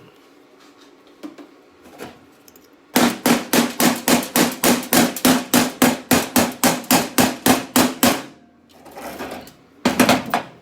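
A hammer striking sheet steel in a fast, even rhythm of about five blows a second for about five seconds, the metal ringing under each blow. Near the end come a softer scraping noise and a short loud clatter.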